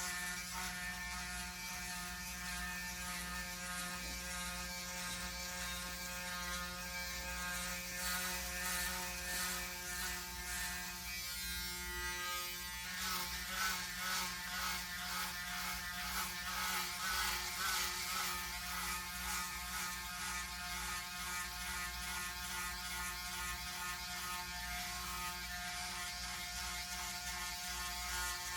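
Braun Series 9 Pro electric foil shaver running with a steady buzz while it is passed over four days of head stubble, its texture changing as it moves across the scalp.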